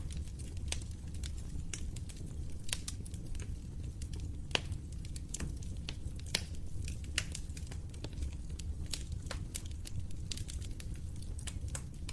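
Fire crackling in a fireplace: irregular sharp snaps and pops over a steady low rumble of the flames, with a few louder pops scattered through.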